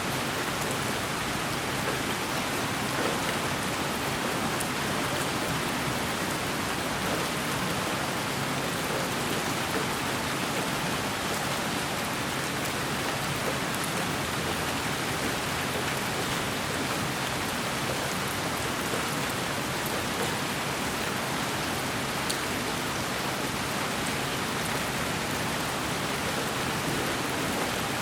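Steady white noise: an even, unchanging hiss with no breaks.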